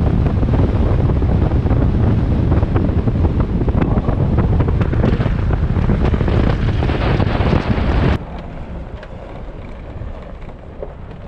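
Wind buffeting the microphone: a loud, low rumble that cuts off abruptly about eight seconds in, leaving quieter wind noise.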